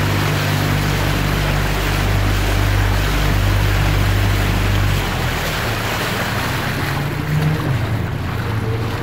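Outboard motor of a following coaching launch running steadily, with water rushing past the hull; the engine hum changes about five seconds in.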